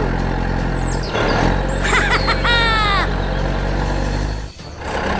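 A vehicle engine running with a steady low drone. A short burst of high, falling tones cuts across it about halfway through, and the drone drops out for a moment near the end.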